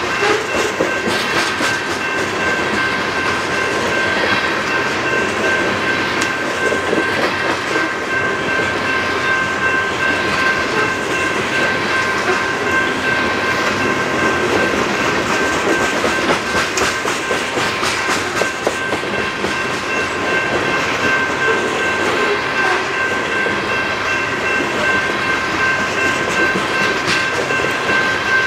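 A train rolling past close by, its railcars' wheels clicking over the rail joints under a steady roar. Several steady high-pitched tones ring through the whole passage.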